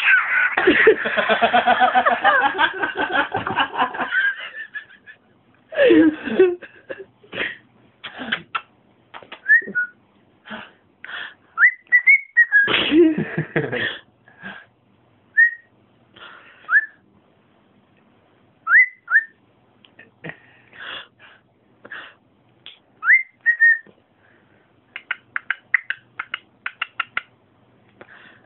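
Cockatiel gibbering: a dense run of chatter for the first few seconds, then a string of clicks and short upward-gliding whistle notes, with another chattering burst about halfway through.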